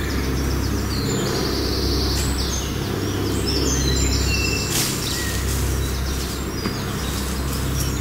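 Small woodland birds chirping and trilling high over a steady low rumble, with the calls thickest in the first half.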